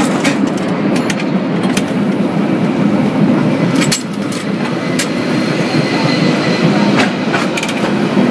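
San Francisco cable car running along its track: a steady rattling rumble broken by scattered sharp clicks and clanks.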